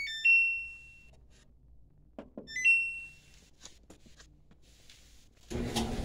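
Samsung electric dryer control panel beeping: a stepped chime ends in a held high beep, then a click and a short beep rising into another held beep about two and a half seconds in. About five and a half seconds in, the dryer's drum motor and blower start running with a steady hum, the replacement control board now working properly.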